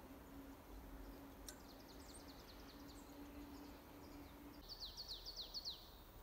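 Faint outdoor quiet with a bird calling: a run of short, high, falling chirps about a second and a half in, and a louder, quicker run near the end, over a faint steady hum.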